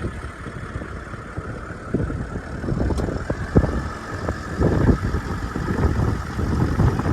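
A car driving, with steady road and engine noise and many irregular low thumps.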